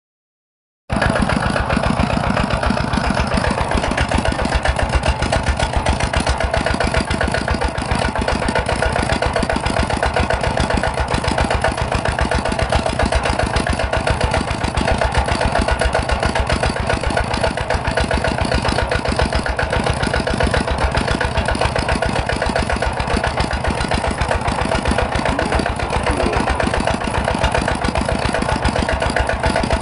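Miniature rice-milling machine running, a steady rapid mechanical rattle that starts abruptly about a second in.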